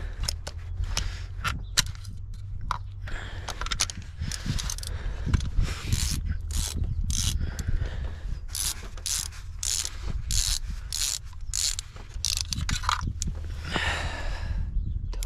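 Ratchet wrench clicking in uneven runs as it backs a spark plug out of a BMW N54 engine's cylinder head, with a brief scraping rustle near the end.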